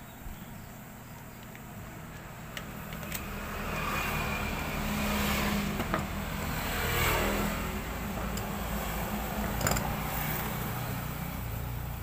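A motor vehicle passing by, its engine noise swelling to a peak around the middle and easing off. A few sharp clicks come from a plastic hair-dryer housing being pulled apart.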